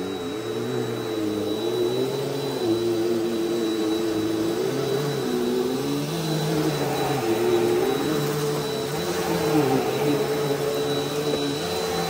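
Bissell PowerForce Helix Turbo Rewind upright vacuum cleaner running on a shag rug. A steady motor whine sits over lower tones that dip and rise every second or two as it works.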